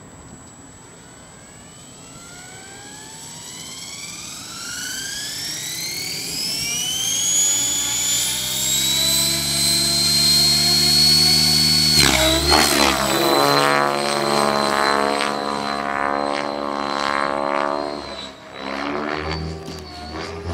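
Align T-Rex 700 radio-controlled helicopter spooling up: a whine rises steadily in pitch and grows louder for about ten seconds as the rotor comes up to speed. About halfway through it levels off into a steady high pitch with a wavering rotor sound as the helicopter flies.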